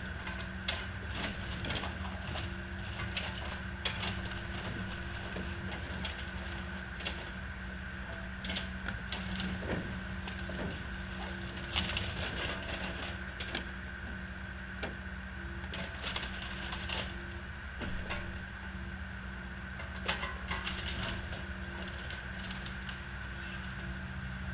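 John Deere compact excavator's engine running steadily while its bucket and thumb crush and tear apart a mobile home's wooden framing and siding, with repeated sharp cracking and splintering of wood.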